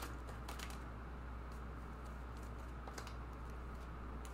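Tarot cards being shuffled by hand and laid on a table: scattered light clicks and taps of card stock, over a steady low hum.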